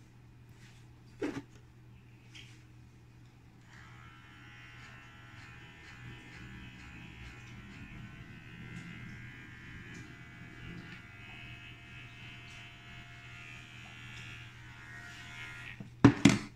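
Electric hair clippers trimming around the ear, running steadily for about twelve seconds from about four seconds in. A single click about a second in, and a short, loud clatter near the end.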